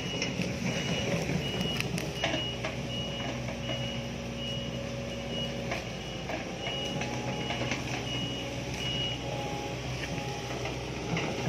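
Sumitomo hydraulic excavator's travel alarm beeping evenly, roughly every two-thirds of a second, over its diesel engine running steadily as the machine moves down a slope. The beeping stops near the end, and a few sharp knocks and cracks come through.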